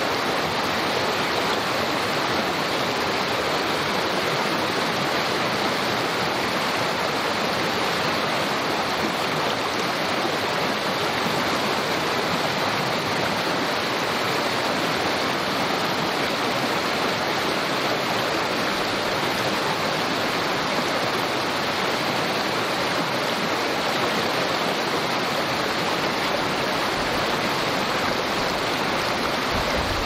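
Small creek babbling and rushing steadily, an even wash of running water with no change in level.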